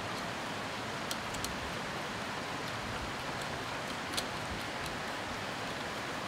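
Steady hiss with a few faint, short metal clicks about a second in, again shortly after, and near four seconds. The clicks come from a magnetic nut driver working the small retaining bolt as a live large rifle magnum primer is fitted into a muzzleloader's direct-ignition breech plug.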